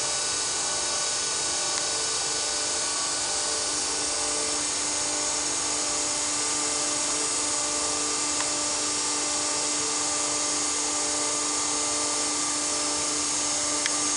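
Rosa Linea Avion 11-7 surface grinder running: a steady high-pitched machine whine made of several constant tones, with a few faint ticks.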